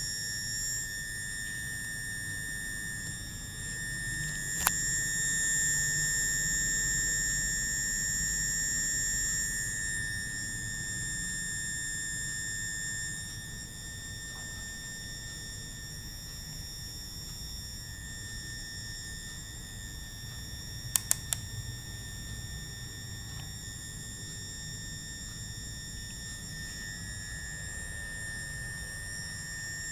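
Steady high-pitched electronic whine, one held tone with overtones, from the powered transformer circuit under test. A sharp click about five seconds in, and three quick clicks around twenty-one seconds.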